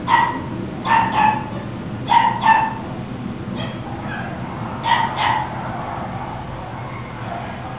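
Papillon puppy yipping: a string of short, high-pitched yaps, several coming in quick pairs about a second apart, thinning out after about five seconds.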